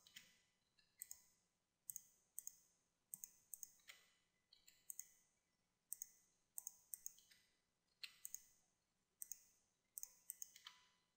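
Faint, irregular clicks of a computer mouse and keyboard, many in quick pairs, over near silence.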